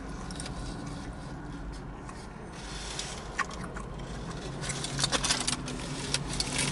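A person eating a Philly cheesesteak sandwich: wet chewing and mouth sounds, with a few sharp crackly clicks about three seconds in and a dense cluster of them about five seconds in. A steady low traffic hum runs underneath.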